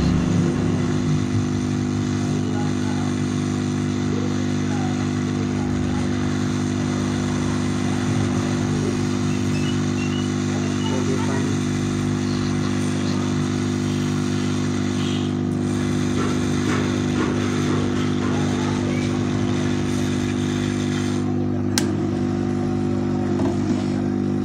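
A steady machine hum that holds one even pitch throughout, with a brief tick near the end.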